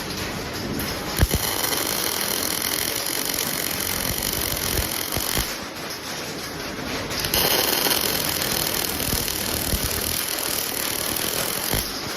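Electric arc welding on angle steel: the arc strikes with a sharp crack about a second in and runs as a steady hiss, stops for a couple of seconds, then strikes again for a second run that cuts off just before the end.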